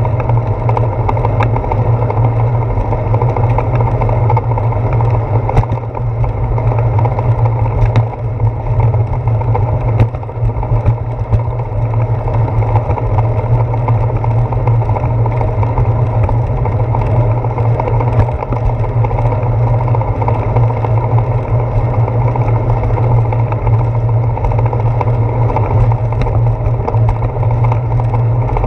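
Steady rumble and hiss of a bicycle rolling over wet pavement, with wind and road vibration, heard through a handlebar-mounted action camera. A few sharp knocks come between about six and eleven seconds in.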